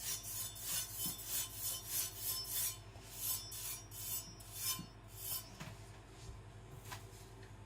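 Carbon-steel Chinese cleaver blade stropped on a trouser leg: quick, even rubbing strokes, about two to three a second, that die away after about five seconds, the last touch-up of the edge after whetstone sharpening.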